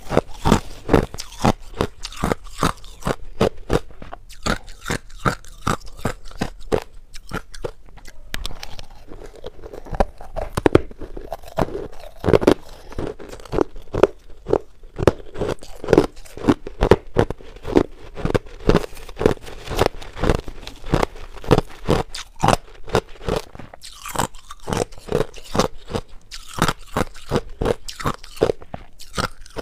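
Crushed ice being chewed close to a lapel microphone: a steady run of hard crunches, about two or three a second, with a brief lull partway through.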